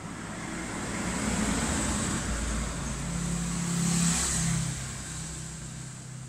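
A passing motor vehicle's engine, swelling up over a few seconds and then fading away.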